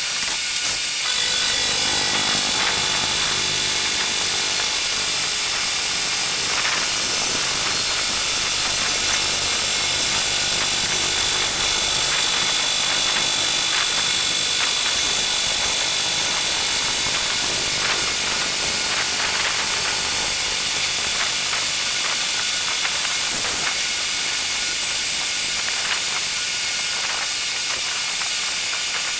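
Milling machine cutting metal with a slot milling cutter: a steady hiss with a constant high-pitched whine.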